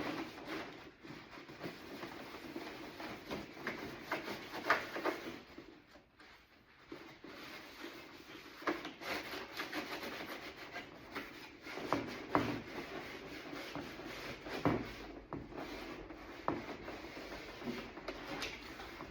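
A rag soaked in acetone rubbing and scrubbing over a door panel to wipe off the old factory markings. The rubbing strokes go on with small scattered knocks and ease off briefly about six seconds in.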